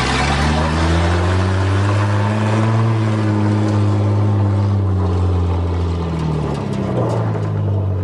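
1982 Toyota Cressida's fuel-injected engine driving, its pitch climbing for about three seconds as it accelerates and then falling back over the next four as it eases off.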